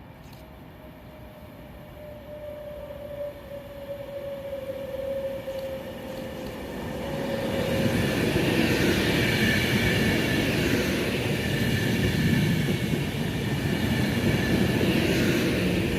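A train approaching and passing close by. A steady tone slowly falls in pitch as it draws near, then about eight seconds in the loud rumble and wheel-on-rail noise of the passing train takes over and holds.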